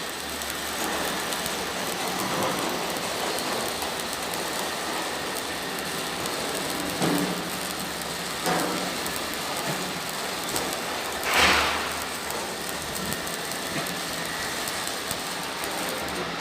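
Arc welding: the electric arc crackles and sizzles steadily, with one brief louder hiss about two-thirds of the way through.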